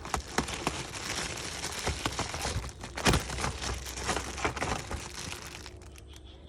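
Crinkling and rustling from handling a cabin air filter, full of small crackles and clicks. It dies away near the end.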